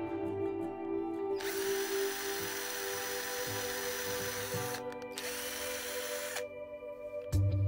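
Cordless drill boring small screw holes into the wooden headstock of an electric guitar. It runs in two spells, the first about three seconds, the second about a second, over background music.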